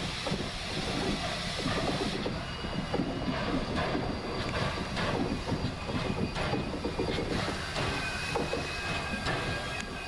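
Steam locomotive 734, a 2-8-0 Consolidation, working hard as it approaches, with a steady run of exhaust chuffs. From a couple of seconds in, thin high squeals from the wheels ride over it.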